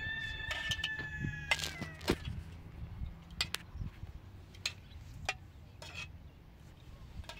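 A rooster crows once, a single long call of about two seconds that trails off slightly in pitch. After it come a few light clinks of a spoon against plates and a metal pot as food is served.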